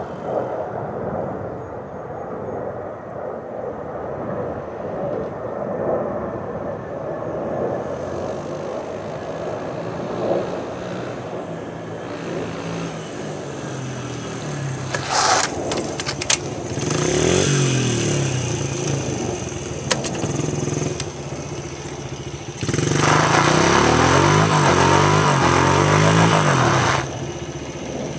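Honda XR70 mini dirt bike's small four-stroke single-cylinder engine running at a distance and coming closer, revving. Near the end it is held at high revs for about four seconds with a loud hiss over it, the rear tyre spinning on asphalt in a burnout, then drops off suddenly.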